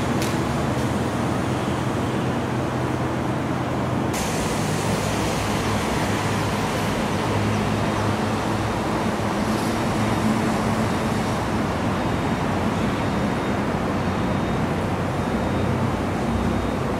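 Steady outdoor city background noise: a broad rush with a low hum under it, changing abruptly in tone about four seconds in.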